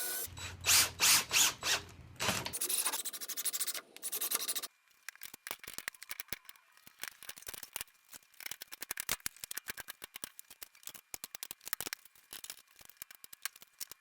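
Workshop handling noise: a few loud rubs and scrapes over the first couple of seconds, then a long run of small quick clicks and clatters.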